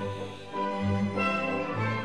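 Background music: bowed strings playing held notes over a low bass line that changes pitch every half second or so.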